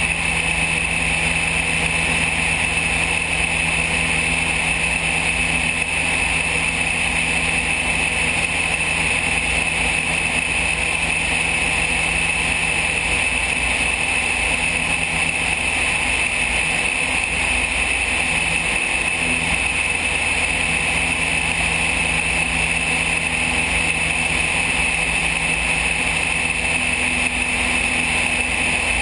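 Van's RV-7 light aircraft's piston engine and propeller running steadily in cruise flight, a constant drone with no change in pitch, mixed with wind rush buffeting the camera mounted outside under the wing.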